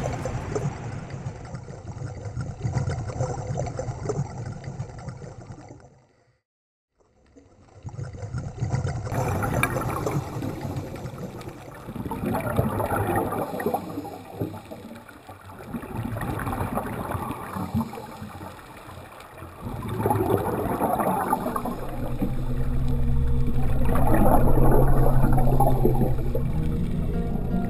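Underwater sound of a scuba diver breathing through a regulator: bursts of exhaled bubbles gurgle every few seconds over a steady wash of water noise. The sound cuts out briefly about six seconds in, and a low drone comes in near the end.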